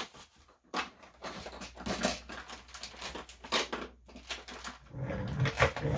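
Scattered clicks and clinks of needle-nose pliers and small metal parts being handled while working a pin out of a shotgun's action, with a short low hum near the end.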